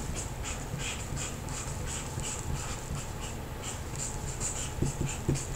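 Felt-tip marker scratching across paper in short strokes, a few a second, as letters are written.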